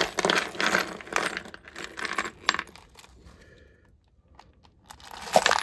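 A pile of loose metal screws being dumped out and sifted through by hand, a dense run of clinking and rattling. It goes quiet for about a second past the middle, then the clinking starts again near the end.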